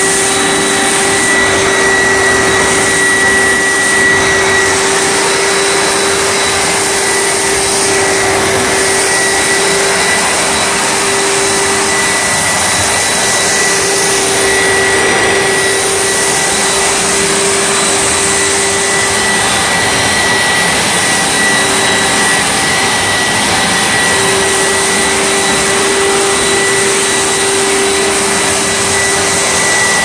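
Hoover SteamVac Widepath carpet cleaner running steadily while scrubbing a linoleum floor: an even suction-motor rush with a steady high whine. A lower hum in it drops away for a few seconds past the middle, then returns.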